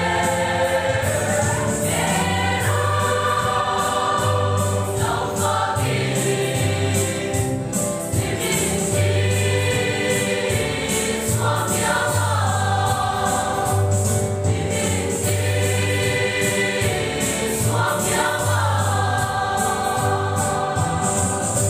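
Large mixed choir of men and women singing a hymn together, in phrases of long held notes over a steady deep bass.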